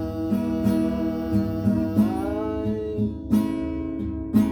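Acoustic guitar strummed in a steady rhythm, accompanying a song.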